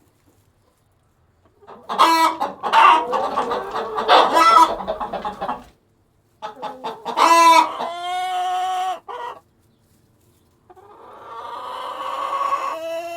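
Chickens calling: hens clucking and cackling and a rooster crowing, in three loud bouts with short silences between them, starting about two seconds in.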